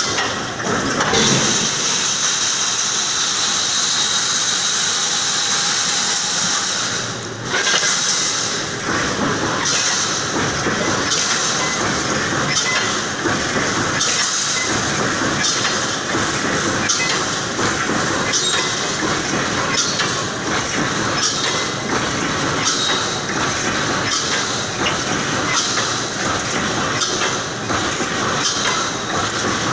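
Reinforcing-mesh panel welding machine running: steady mechanical noise with a hiss, and from about a third of the way in a regular clatter of strokes about once a second.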